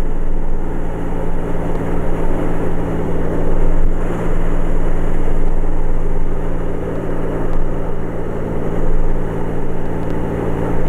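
1946 North American Navion's piston engine and propeller droning steadily in the cabin in flight, throttled back as the plane slows toward gear speed.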